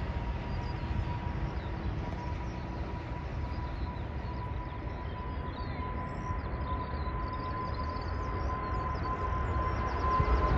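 Twin-engine widebody jet airliner taking off at full thrust: a deep engine rumble with a steady high whine, growing louder over the last couple of seconds as the plane lifts off and climbs.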